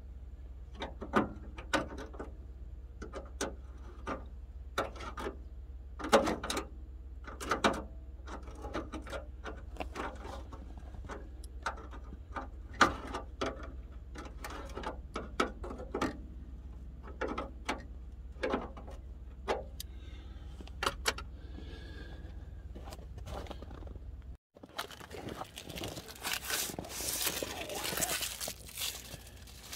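Light metallic clicks, taps and scrapes of hand tools and small hardware being worked at a pickup's headlight mounting, over a steady low hum. Near the end the sound cuts and gives way to a rushing, rustling noise.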